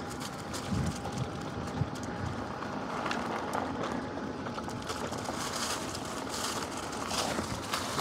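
Mountain bike with a 52 V 3000 W electric conversion kit ridden fast over grass and dirt: steady tyre and frame rattle with scattered clicks, and a faint steady motor whine.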